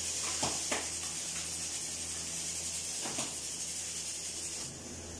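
A steady high hiss over a low steady hum, with a few light knocks, twice early and once about three seconds in.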